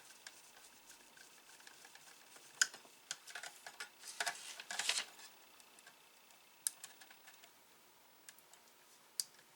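Scattered small clicks and taps of parts being handled and pushed into place during reassembly of an Atari SF354 floppy disk drive, a cluster of them a few seconds in and single sharp clicks later.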